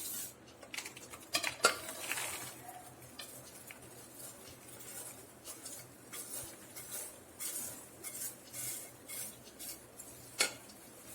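Scattered clinks and scrapes of a metal cooker and utensils, with soft rustling of freshly popped popcorn being handled; a sharper clink about a second and a half in and another near the end.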